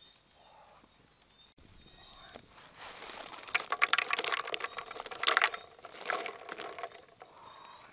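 Quail eggs poured from a woven basket into a pan of water, clicking against one another and splashing. The clatter starts about two and a half seconds in and is loudest around the middle.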